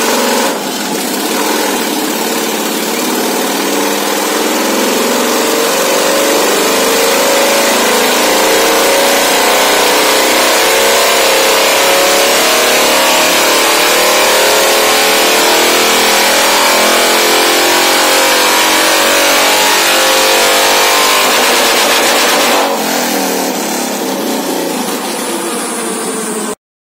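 Harley-Davidson V-twin touring motorcycle engine in a dyno pull. It revs in one long, steady climb in pitch for about twenty seconds, then drops abruptly to a lower, quieter run near the end as the throttle is closed.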